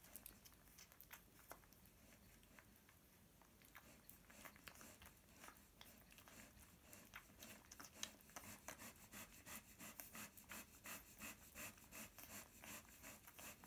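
Faint wet smacking and clicking of Airedale terrier puppies suckling at their mother, scattered at first and settling into a steady rhythm of about three sucks a second from about halfway through.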